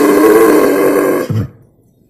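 Wild boar sow calling: the tail of a long, loud, pitched squeal that wavers and drops in pitch, then a short low grunt. The call stops about a second and a half in.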